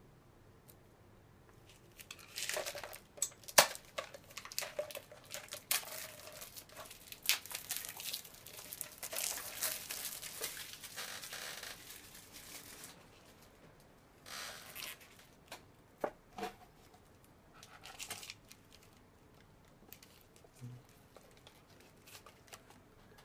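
Thin plastic film wrapper of an instant cup noodle tub tearing and crinkling as it is stripped off and crumpled, with sharp crackles, the loudest a bit over three seconds in. The crinkling dies down around thirteen seconds in, then comes back as a few shorter, softer rustles and taps.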